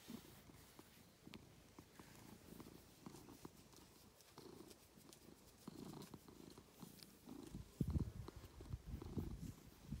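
Domestic tabby cat purring contentedly while its head and ears are scratched. The purr swells and fades with each breath and grows louder near the end.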